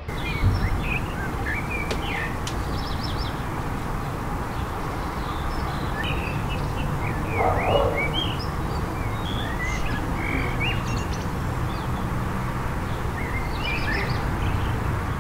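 Outdoor garden ambience: small birds chirping in many short, scattered calls over a steady low background rumble, with one brief louder sound about halfway through.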